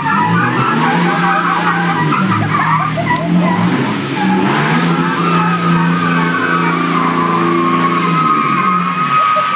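Duramax and Cummins diesel pickups pulling against each other under heavy load, engines droning while tyres spin and squeal. The squeal and the engine noise drop off abruptly at the very end.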